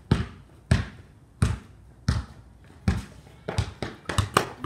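Basketball being dribbled on a concrete driveway: slow single bounces a little under a second apart, then a quicker run of bounces near the end.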